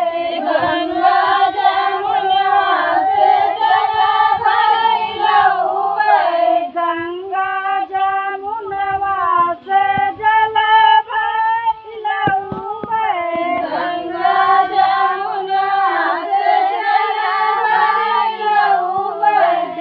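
Women singing a song together in one continuous high melody with long held notes.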